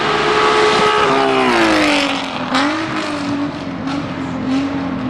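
Alfa Romeo GTV6 race car's V6 engine running hard as the car passes. Its note drops in pitch about a second in and settles lower as it draws away, with a few short sharp cracks in the second half.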